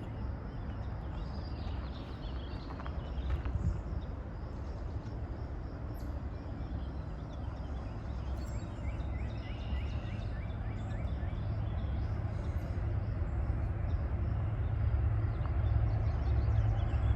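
Low rumble of an approaching train's diesel locomotives, growing steadily louder, with birds chirping high above it.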